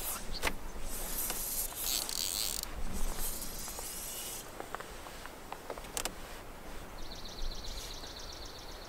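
Fly line swishing through the air as a fly rod is false-cast, three airy whooshes in the first few seconds with a couple of light knocks. Near the end a fast, fine ticking rattle for about two seconds.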